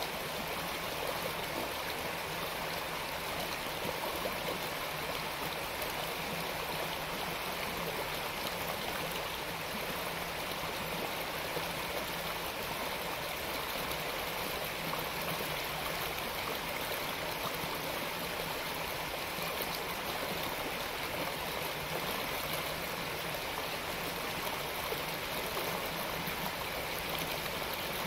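Creek water rushing steadily over rocks and shallow riffles.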